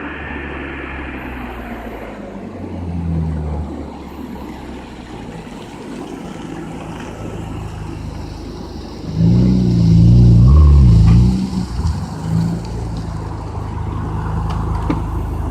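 BMW E46 M3's straight-six engine through a full Magnaflow exhaust, idling steadily. There is a short blip of the throttle about three seconds in, then a louder rev about nine seconds in that rises and drops back to idle after a couple of seconds.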